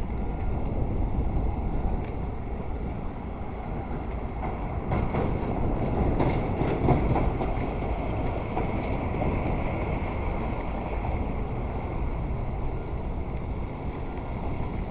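Steady low rumble of passing road vehicles with wind on the microphone, swelling louder about five to seven seconds in.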